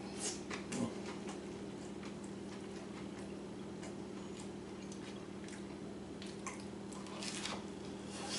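A person chewing and biting into a toasted, panini-pressed Cuban sandwich, with faint crunches of the crisp crust about half a second in and again near the end. A steady low hum runs underneath.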